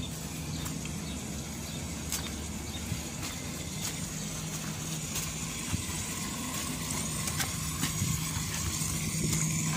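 A steady low mechanical hum, like a motor or engine running, with scattered light clicks.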